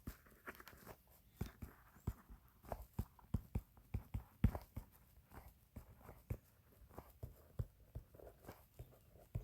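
Faint, irregular clicks and taps, a few a second, from someone working a computer while setting up a graph.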